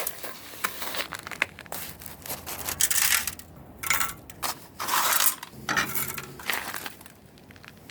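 Roasted quartz ore rocks clinking and crunching in a rock crusher, in irregular sharp cracks and short grinding bursts; roasting has made the rock brittle, so it breaks up easily.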